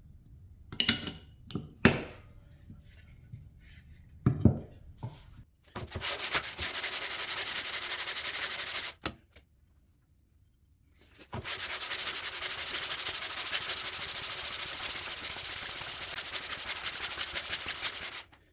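A few light knocks of handling, then two long spells of steady abrasive sanding, the first about three seconds and the second about seven, with a short pause between.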